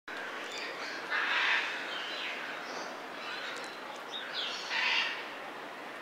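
Birds calling outdoors: two harsh, raspy calls, one about a second in and one near the five-second mark, with faint high chirps in between.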